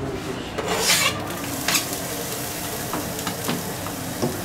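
Chopped garlic scraped off a plastic cutting board with a knife into a frying pan of hot olive oil, then sizzling steadily, with a few short clicks of the knife and pan.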